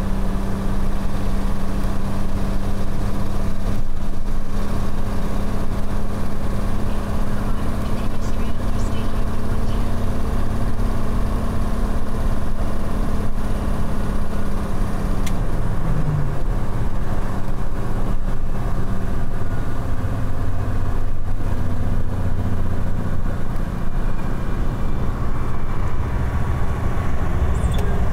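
Detroit Diesel 12.7-litre inline-six engine of a Volvo 610 semi tractor running under way, heard inside the cab as a loud, steady drone. Its pitch dips briefly about halfway through, then settles back.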